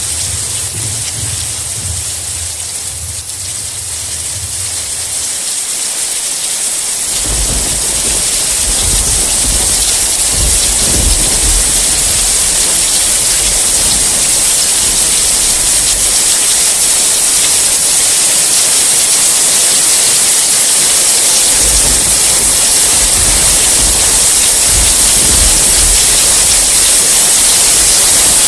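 Steady rain hissing, with low rolling thunder rumbling in the first few seconds and again several times later on; the rain grows gradually louder.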